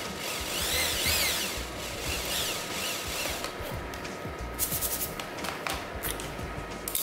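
Background instrumental music with a steady bass beat and rising-and-falling sweeps, with a few sharp clicks in the second half.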